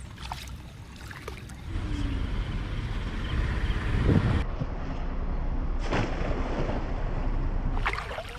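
Wind buffeting the microphone with a steady low rumble, over water sounds with a few short splashes near the start.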